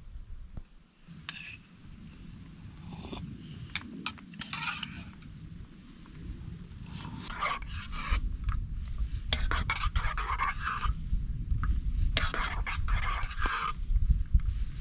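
Gear being handled: irregular rubbing, scraping and rustling with scattered light clicks, over a low rumble that grows louder from about halfway through.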